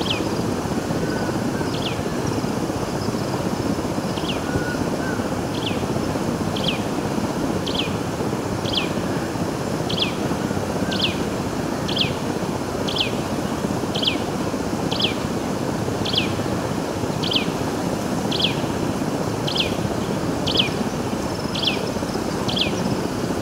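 A bird's short high call, one quick falling note repeated about once a second, over a steady rushing background noise.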